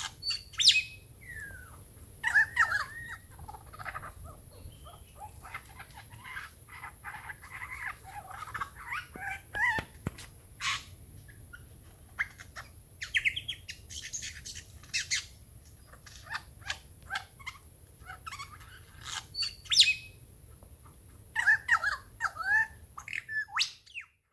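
Wild birds calling, credited to a lyrebird and cockatoos: a busy, varied run of chirps, whistles, sharp clicks and squawks over a faint low hum, with loud calls about a second in and again near the end.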